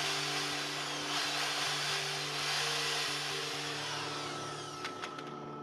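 A small electric appliance, plugged into the portable generator's power bar, runs with a loud steady rushing whoosh and is switched off with a few clicks near the end. The generator's steady low hum runs underneath.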